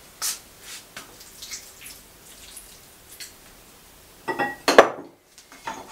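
A little water poured from a drinking glass into a mixing bowl, with a few small splashes and drips. The glass is set down with a loud ringing clink about four and a half seconds in.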